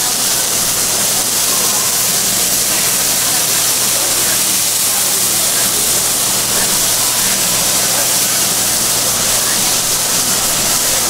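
Beef steak skewers sizzling on a hot flat-top griddle: a loud, steady hiss.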